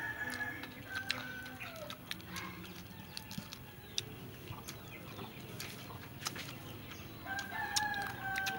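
A rooster crowing in the background: one long, steady crow right at the start and another about seven seconds in. Scattered sharp clicks and crunches from fried chicken wings being broken apart and chewed run throughout.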